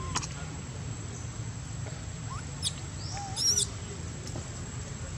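Infant long-tailed macaque crying in short high-pitched squeals. The loudest is a wavering cry about three and a half seconds in, over a steady low background rumble.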